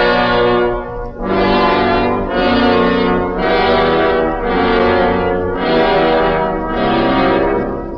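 Brass music on a story record: a run of held chords, each about a second long with a short break between them.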